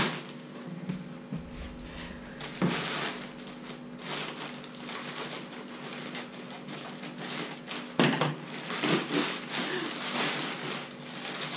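Plastic mailer bag rustling and crinkling as it is handled and opened, with sharper knocks about two and a half seconds in and again about eight seconds in.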